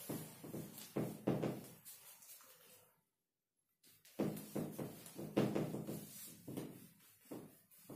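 Whiteboard duster rubbing across a whiteboard in repeated back-and-forth strokes. The sound cuts out completely for under a second about three seconds in.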